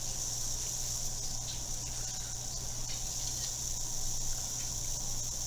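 Steady high-pitched hiss over a low steady hum, with a few faint ticks.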